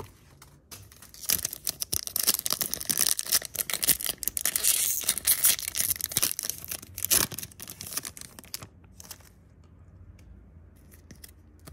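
A foil Yu-Gi-Oh booster pack wrapper being torn open by hand: a dense run of crackles lasting several seconds, loudest in the middle, dying down to a few faint clicks near the end as the cards come out.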